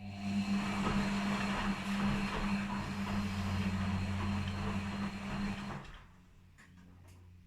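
Washing machine in its wash phase: the motor turns the drum with a steady hum and a noisy churning of the wet load for about six seconds, then the drum stops and only a quieter hum is left, as in the stop-and-reverse rhythm of a wash cycle.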